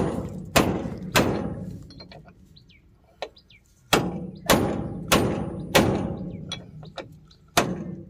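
Hammer blows on a steel wrench held on the bearing-housing bolt of a combine harvester's auger, working it loose to change a broken bearing. Sharp metallic strikes with a short ring: three about half a second apart, a pause of a couple of seconds, then a run of about half a dozen more.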